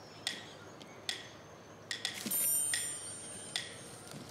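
Light percussive music: soft, identical clicking taps at an even pace of a little more than one a second, with a high shimmering chime entering about two seconds in.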